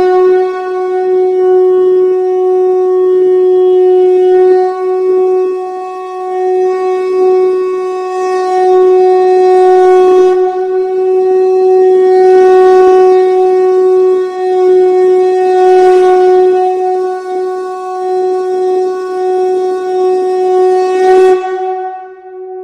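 Sankha (conch shell) blown in one long, steady note that swells and eases in loudness. It holds for about twenty seconds, then drops away near the end into a faint fading tail.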